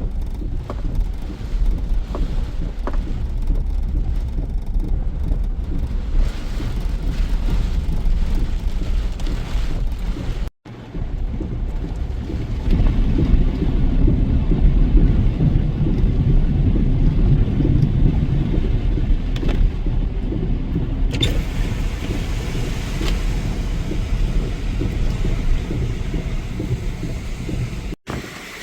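High wind and heavy rain of a severe thunderstorm, the wind buffeting the microphone as a steady low rumble. The sound cuts out for an instant about ten seconds in and again near the end.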